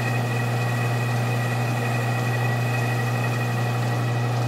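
Metal lathe running steadily while a cutting tool slowly faces the muzzle end of a rifle barrel, peeling off curly steel chips. It gives a constant low hum with a thin, high, steady whine above it.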